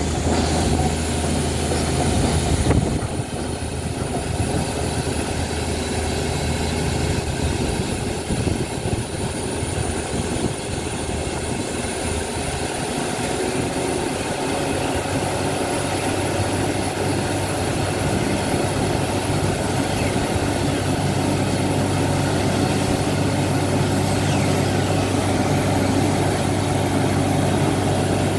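Borewell drilling rig running with a steady loud drone, its engine hum turning rougher about three seconds in and steadying again later. The drill is flushing muddy water and rock cuttings up out of the bore, a sign the hole has struck water.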